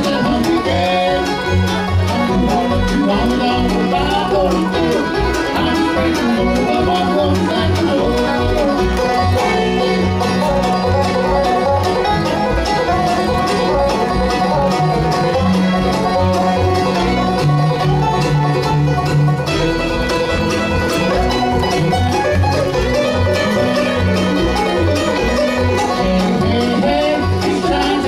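Live bluegrass band playing an instrumental break at a steady driving beat: banjo, fiddle, mandolin and acoustic guitar over a walking upright bass.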